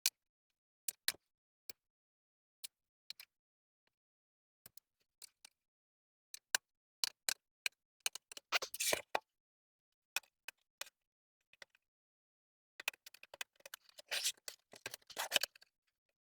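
Scattered sharp clicks and short scrapes of a tool working on a plastic laptop case during disassembly, busiest in the middle and again near the end.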